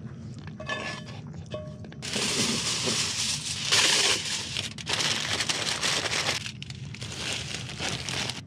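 Food packaging crinkling and rustling as it is handled, in one long loud stretch from about two seconds in, a short lull, then again near the end.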